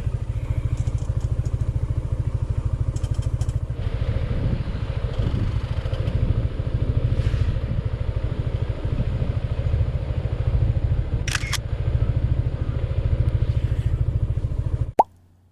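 Motorcycle engine running steadily under way, a fast even pulsing, cutting off abruptly near the end.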